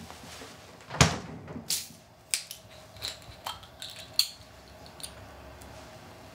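A refrigerator door thuds shut about a second in, then a run of small clicks ending in a sharp snap as the screw cap of a small drink bottle is twisted open.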